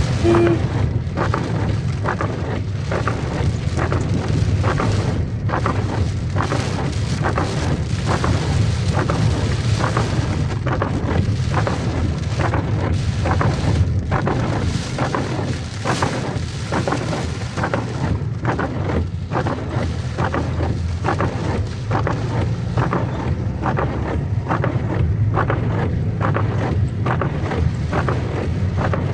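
Heavy rain pouring in a thunderstorm, with a constant low rumble of wind buffeting the microphone and many close drops tapping.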